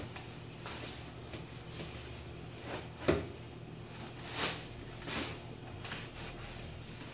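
Kitchen cookware and utensils being handled during cooking: a sharp knock about three seconds in, two short noisy swishes a second or two later and a few lighter clicks, over a steady low hum.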